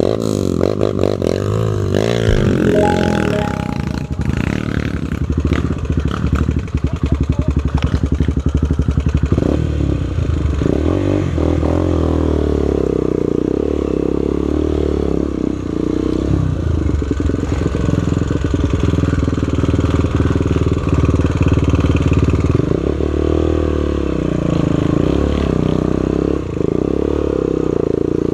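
Trail motorcycle engine running with the throttle opening and closing, its pitch rising and falling in the first few seconds and then holding steadier, with clattering from the bike over rough ground.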